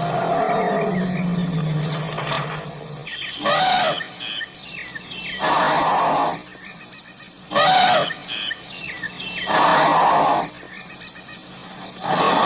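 Indian elephant calling: a long, low pitched rumble-like call for the first three seconds, then five loud, harsh roaring calls about two seconds apart. Faint bird chirps sound between the calls.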